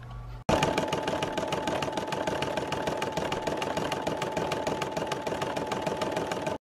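Brother PE-770 embroidery machine stitching an applique outline: a fast, even needle rattle with a steady whine. It starts about half a second in and cuts off suddenly near the end.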